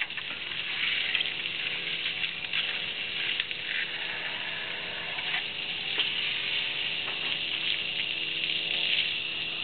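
Garden hose spraying water onto dishes on the ground: a steady hiss of running spray.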